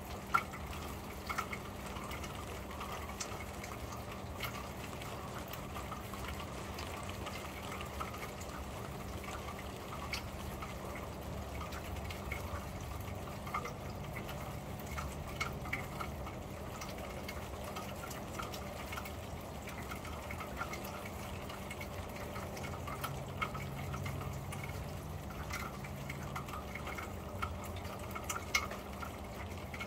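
Rain on a corrugated metal roof, heard from underneath: a steady wash of rain with scattered sharper drop ticks throughout. A faint steady low hum lies under it.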